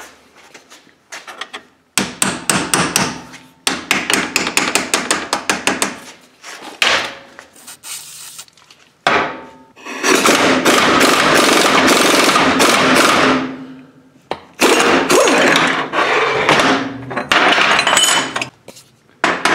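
Impact wrench turning the screw of a C-frame press, pressing a steel bushing shell into a lower control arm: runs of rapid hammering, the longest a loud run of about three and a half seconds just past the middle, then more runs near the end.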